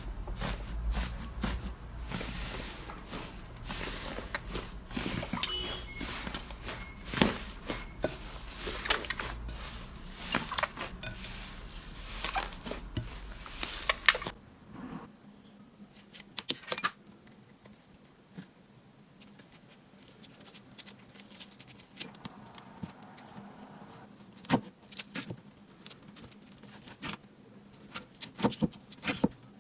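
Slime being squeezed and poked by hand, making irregular sticky pops and crackles. The pops are dense at first, then fewer and sharper after about halfway.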